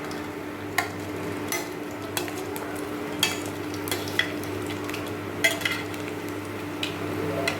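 Deep-frying oil sizzling in a pan while Mysore bondas are stirred and lifted out, with a spoon knocking against the pan about nine times at irregular moments over a steady low hum.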